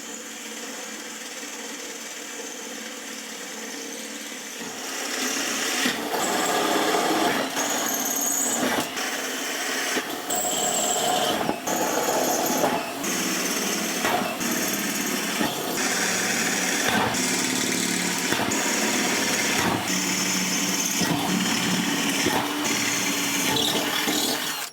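Power tool running on and off in stretches, quieter for the first few seconds and louder from about five seconds in, with frequent abrupt breaks.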